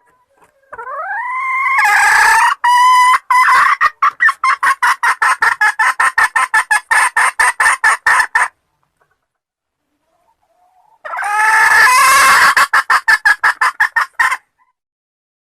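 Wild red junglefowl crowing twice. Each call starts with a rising note and breaks into a rapid, even stutter of pulses; the first call lasts several seconds and the second follows after a short pause.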